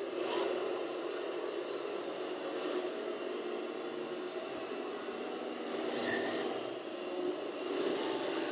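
Double E E116 RC tracked compact loader running in dirt: a steady mechanical hum from its drive, with a high electric-motor whine that glides in pitch briefly just after the start and again near the end.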